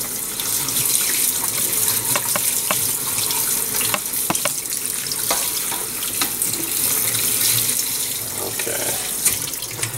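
Kitchen faucet running steadily onto cut potato fries in a plastic colander over a stainless steel sink, rinsing the starch off, with a few light knocks as the fries are stirred by hand under the stream.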